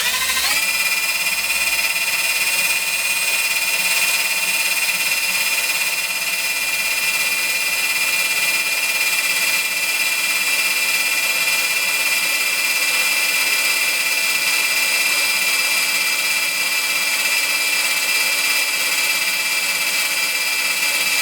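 Cordless drill running flat out with a steady high whine, its small drill bit boring a pilot hole through an M12 nut. It winds up quickly at the start and cuts off abruptly at the end.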